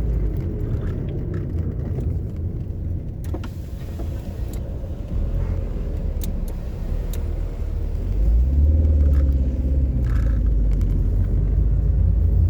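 A car driving, its engine and road noise making a steady low rumble that grows louder about eight seconds in.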